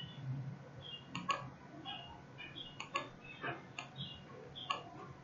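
Faint computer mouse clicks, scattered irregularly, a few close together, while the software is worked.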